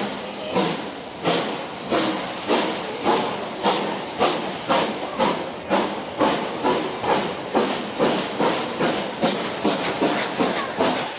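Steam locomotive exhaust chuffing as the train pulls away, over a steady hiss of steam. The beats quicken from under two a second to about two and a half a second as it gathers speed.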